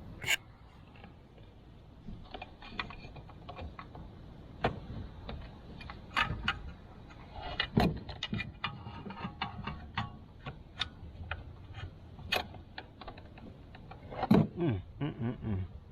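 Metal hand tools clinking and knocking against the motorcycle in irregular clicks, with a louder cluster of knocks and rattles near the end.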